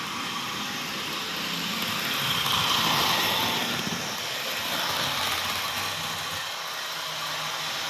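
Model diesel locomotive pair running at speed on the track, its DCC sound decoder playing diesel engine sound over the noise of the motors and wheels. The sound swells about two to four seconds in.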